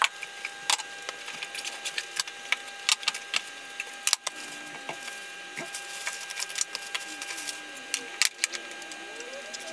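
Food being unpacked by hand from an insulated lunch bag: plastic bags rustling and crinkling, with many sharp clicks and knocks of plastic food containers and water bottles being set down. A faint steady tone runs underneath.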